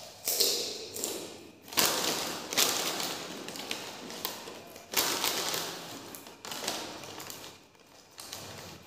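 Crunchy fried snack pieces being chewed close to the microphone, with the foil snack packet crinkling as a hand reaches into it. The crunching comes in sharp bouts and dies down toward the end.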